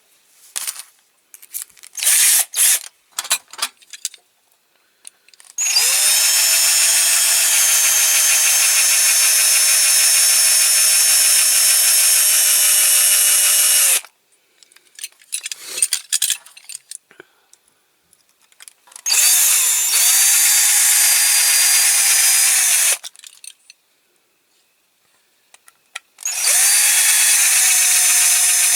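Electric drill running in three long spells with a larger bit, drilling out the domed rivets of a die-cast toy lorry's chassis, after a few short blips of the trigger early on. The motor holds a steady pitch through each spell.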